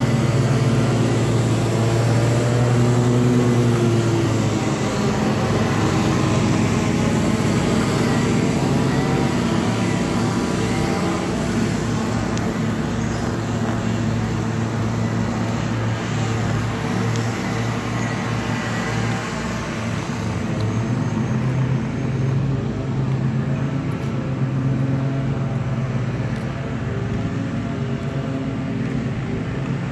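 A motor running steadily with a low hum whose pitch rises and falls at times.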